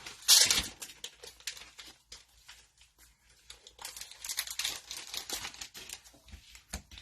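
Cellophane wrapper of a football card cello pack crinkling and tearing as it is opened: a loud rip just after the start, then a stretch of irregular crinkling about four to six seconds in.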